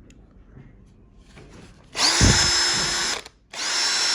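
A Makita DF488D cordless drill-driver run with no load in two trigger pulls of about a second each. Each time the motor spins up quickly to a steady high whine, then stops. It is a function check, and the tool runs in good working order.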